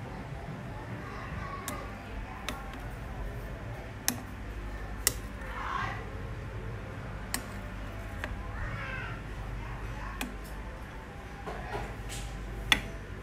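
Metal ladle stirring soup in a stainless-steel pot, clinking against the pot's side about seven times at irregular intervals.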